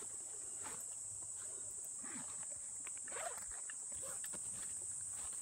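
Steady high-pitched insect chorus, with faint rustling and steps through grass and undergrowth.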